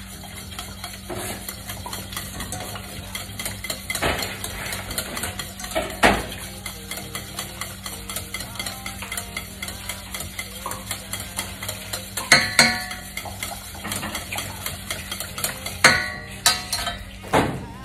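Wire whisk beating egg yolks in a stainless steel saucepan, a fast continuous clatter of the wires against the pan, as warm cream is added little by little to temper the yolks without scrambling them. A few louder knocks of the whisk against the pan stand out.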